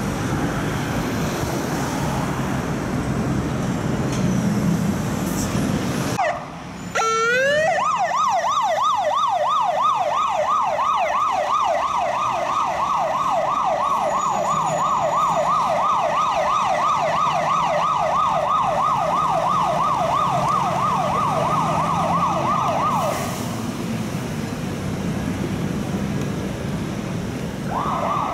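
London Fire Brigade pump ladder's siren, over street traffic noise. About six seconds in it winds up with a rising tone and then runs a fast, even yelp of about three sweeps a second for some fifteen seconds before stopping. It sounds again briefly near the end.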